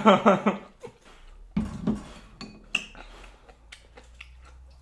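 Chopsticks clicking against small ceramic bowls while noodles are eaten: a handful of light, scattered clinks, with a duller knock about a second and a half in.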